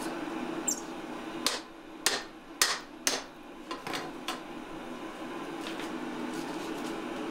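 Sharp metal clanks from steel tools knocking against a steel blacksmith's twisting rig holding a hot billet: four loud clanks within about two seconds, then a few fainter knocks, over a steady background hum.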